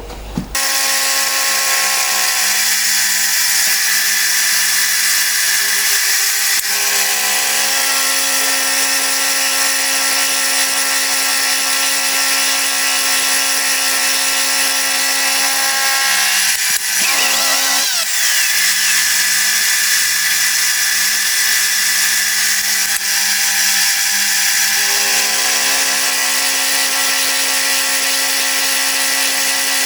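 Metal-cutting machine tool starting about half a second in and running steadily, a motor hum with a constant hiss of cutting on top, as it takes half a millimetre off a hard steel blank. The hum shifts in pitch a few times, briefly around the middle.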